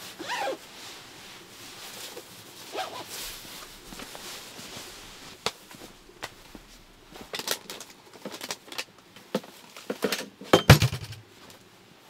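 A jacket zipper is pulled right at the start, with a short zip sound. Then come clothing rustle, footsteps and the small clicks and knocks of gear being handled, and one heavier thump a little before the end is the loudest sound.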